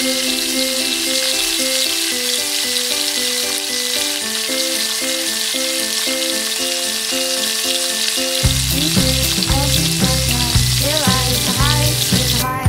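Stinky tofu deep-frying in hot oil in a wok, a steady sizzle. Light background music plays over it, and a bass line comes in about two-thirds of the way through.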